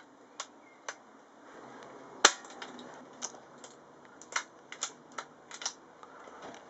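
Air rifle firing a single pellet: one sharp shot about two seconds in, the loudest sound, with a scatter of lighter mechanical clicks before and after it.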